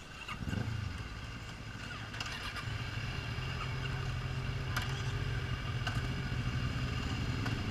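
Sport motorcycle engines idling, with a quick rev about half a second in, then a steady low engine note that slowly grows louder as the bikes get ready to move off. A few sharp clicks are mixed in.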